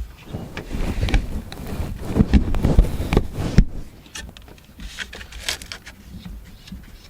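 Hands and tools working on the alternator's ground cable nut, with irregular rubbing, low knocks and bumps, loudest in the first half, then a few light metal clicks.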